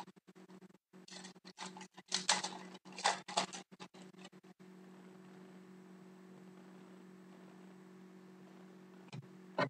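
Crinkling and rustling of a foil hockey-card pack being torn open and the cards slid out, in irregular bursts over the first few seconds. A steady low hum runs underneath and is all that is left for the second half.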